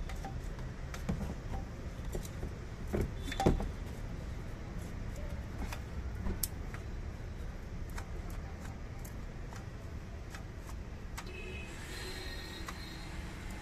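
Light metallic clicks, ticks and a few knocks, loudest about three and a half seconds in, as a new spin-on oil filter is screwed by hand onto a Hyundai i20's engine, over a steady low background rumble.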